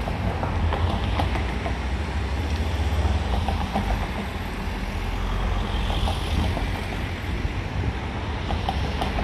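Bombardier Flexity 2 tram running in along the rails and drawing to a stop within the first few seconds, then standing, over a steady low rumble.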